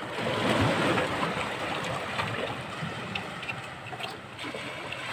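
Seawater splashing and sloshing in a rock hole as a hand is pushed in and worked about under the water, loudest in the first two seconds, with a few small knocks.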